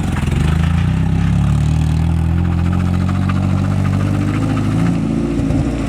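Nissan 240SX's engine running at low, steady revs, its pitch dipping briefly at the start and again near the end.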